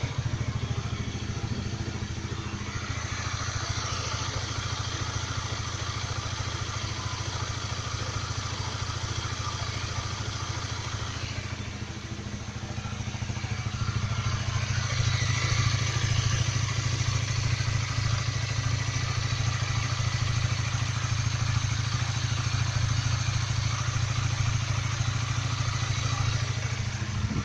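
Honda CBR150R facelift's single-cylinder engine running at idle just after starting, with the 'klotok klotok' clattering knock of this model, a fault some owners cure by replacing the cam chain tensioner lifter. The running grows somewhat louder about halfway through.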